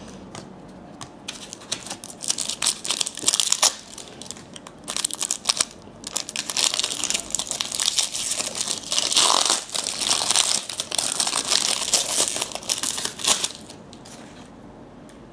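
Plastic-foil wrapper of a trading card pack crinkling and tearing as the pack is opened: a dense run of crackles from about a second in until near the end.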